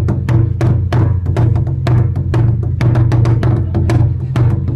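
Thai barrel drums beaten hard and fast with wooden sticks, a driving beat of about six strikes a second with a deep, booming resonance, played as a Thai battle-drum piece.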